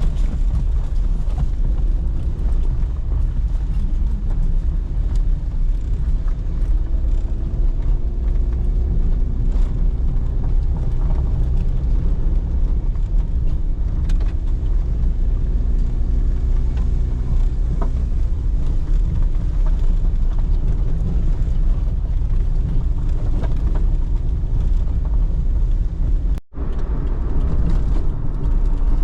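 Car on the move: a steady, loud low rumble of road and engine noise. It cuts out for a moment near the end and then picks up again.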